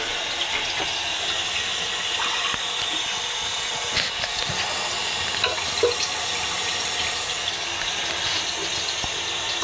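A steady hiss with a few faint knocks about four and six seconds in.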